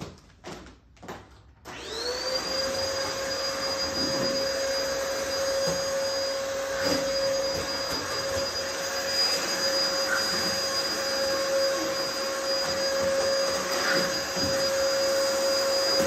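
A few footsteps on a wooden floor, then an upright vacuum cleaner switched on about two seconds in: its motor whine rises quickly to a steady pitch and runs on steadily while it is pushed over the floor.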